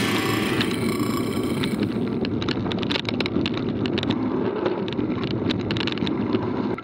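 Mountain bike rolling fast over a dirt and gravel forest track: steady tyre rumble with frequent clicks and rattles, and wind on the microphone.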